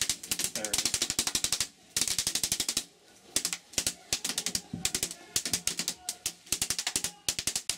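Airsoft electric guns firing on full auto: bursts of rapid, evenly spaced clicks, several bursts with short pauses between them.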